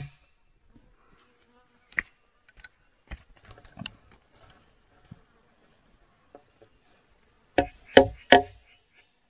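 A faint steady insect drone, scattered small clicks, and three hard knocks in quick succession near the end, like a tool striking wood.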